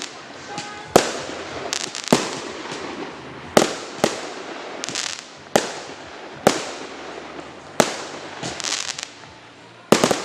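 Fireworks going off: about seven sharp bangs at irregular intervals of one to two seconds, with short bursts of crackling between them.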